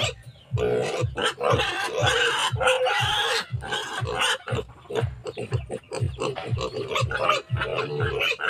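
Pigs grunting in a steady run of short, falling grunts, about three a second, as they beg for more food.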